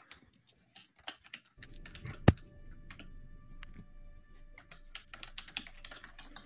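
Irregular clicking and tapping, like typing on a computer keyboard, with one sharp knock about two seconds in. Faint held notes of background music come in partway through.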